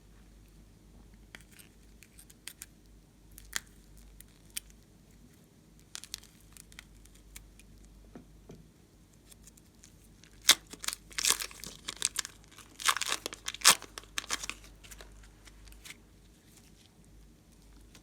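Slime being worked by hand, giving scattered sharp crackles and pops that build into a dense burst of crackling about ten seconds in and ease off around fifteen seconds.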